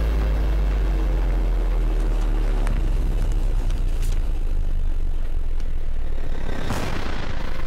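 A loud, steady low drone made of stacked tones, its deepest part dropping away about a third of the way through. A whooshing swell comes near the end.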